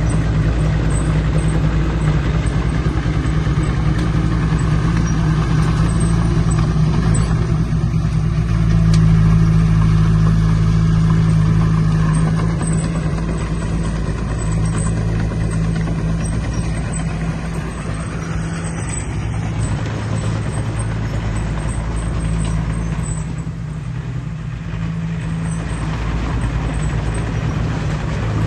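Heavy diesel engine of an earthmoving machine running with a deep, steady drone, working harder for a few seconds about nine seconds in.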